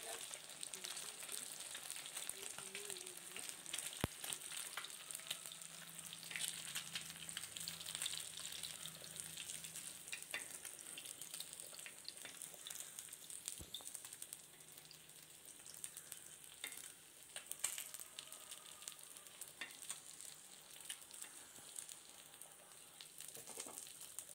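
Fish steaks frying in oil on a flat iron tawa: a steady crackling sizzle, with two sharp clicks along the way.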